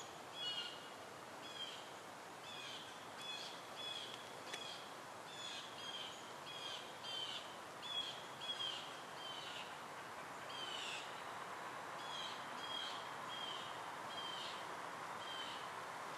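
A small songbird calling short, high, downward-slurred chip notes, repeated about once or twice a second with a brief pause about ten seconds in, over a steady outdoor hiss. The notes are too high and short to be the owl's own toots.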